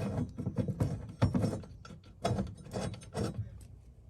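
Irregular clicks and knocks of bolts and metal mounting hardware being handled and started by hand.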